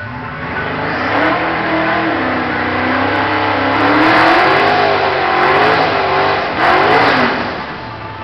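Twin-turbo Ford Mustang doing a burnout: the engine revs up and holds at high revs, its pitch wavering, over the loud hiss of the rear tyres spinning. A last surge comes about seven seconds in before the revs fall away.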